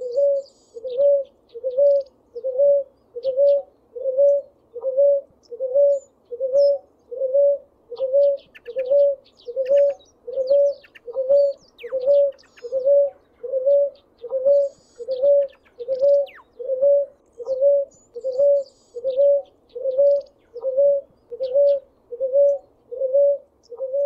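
Ruddy ground dove (Columbina talpacoti) singing: a long, even series of low coos, about three every two seconds. Faint high chirps of other small birds come and go behind it.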